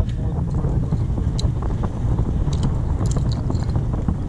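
Wind buffeting an action camera's microphone: a steady low rumble with faint scattered ticks.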